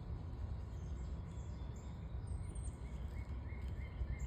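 Outdoor ambience of a steady low rumble with small birds calling over it: a thin high whistle that rises and then drops about halfway through, and a quick run of short chirps near the end.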